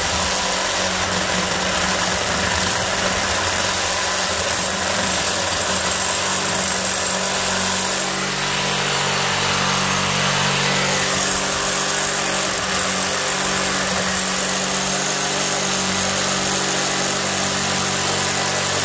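Electric jigsaw running steadily as its blade cuts across a softwood batten.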